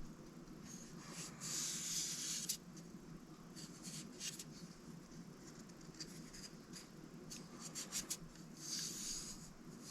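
Knife blade's steel edge scraping in strokes across a coarse diamond sharpening plate, a quiet hissing rasp on each pass while the edge is being reprofiled. The longest strokes come about one and a half seconds in and near the end, with shorter quick passes between.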